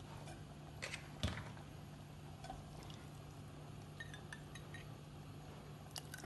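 A few light clinks of a metal spoon against a metal pressure-cooker pot and a small bowl as salt and tamarind water are added to the sambar, the sharpest a little over a second in, with faint small ticks later on. A steady low hum underneath.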